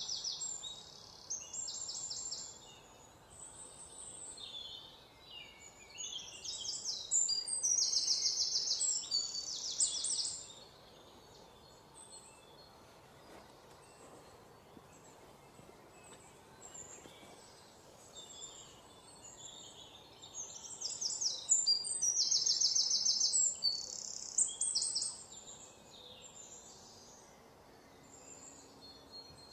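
Wild birds chirping and singing rapid, high-pitched trills in bouts of a few seconds, with quieter spells of faint outdoor background between them.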